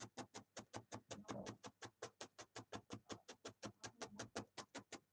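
Felting needle stabbing rapidly into wool on a foam pad: a fast, even run of soft clicks, about eight a second.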